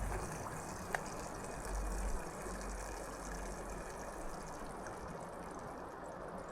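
Wind buffeting the microphone, with low rumbling gusts in the first two seconds over a steady hiss, and a single sharp click about a second in.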